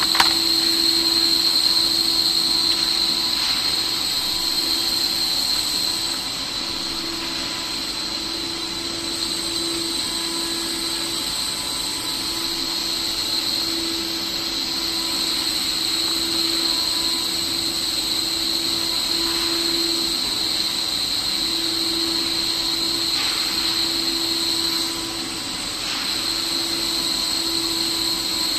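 CNC router spindle running with a steady high-pitched whine over the hiss of the bit cutting aluminium composite panel. A lower hum under it rises and falls in level.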